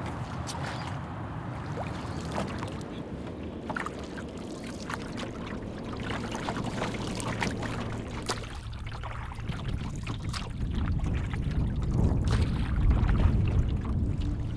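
Water splashing and sloshing around a loaded canoe as it is hauled through a shallow stream, with scattered knocks and clicks. Later, on open choppy water, wind buffets the microphone with a low rumble that is strongest near the end.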